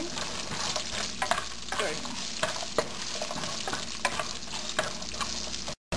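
Wooden spatula stirring and scraping sliced garlic, ginger and whole spices across a nonstick frying pan, over a steady low sizzle of a little hot oil as the spices fry. The sound cuts out for a moment near the end.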